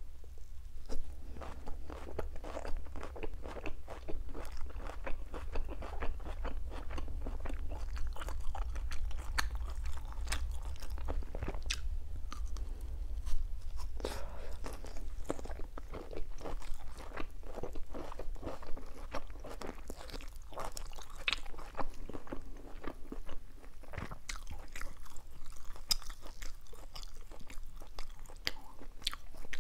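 Close-miked eating: a person biting and chewing grilled beef and bell-pepper skewer pieces, a steady run of crunches and chewing clicks.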